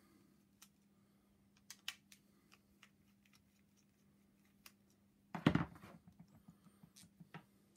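Small screwdriver working the screws out of a steam cleaner's vibratory solenoid water pump: faint metal scratches and light ticks, then a louder clatter about five and a half seconds in as the screwdriver is put down on the table.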